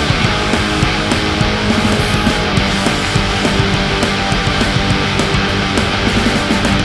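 Background music: loud, distorted guitar-driven heavy rock with a steady beat.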